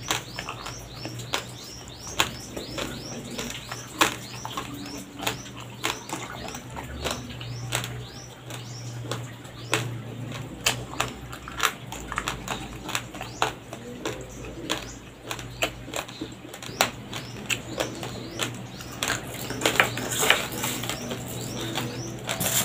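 Raw, uncooked rice grains crunching and cracking between the teeth as they are chewed, an irregular run of sharp crisp cracks that gets a little denser and louder near the end.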